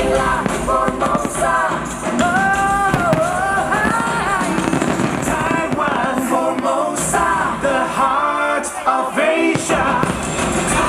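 A pop-style song with a singer playing loudly over a public-address system, with fireworks bursts popping and crackling over it, more of them from about halfway through.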